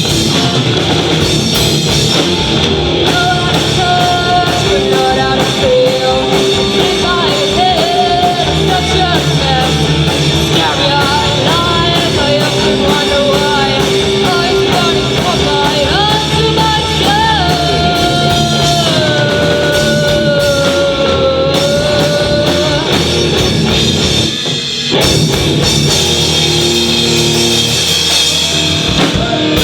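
Live rock band playing, with drums and guitar throughout and a singer carrying a sung melody through most of it. The band sound thins briefly about twenty-four seconds in before coming back in full.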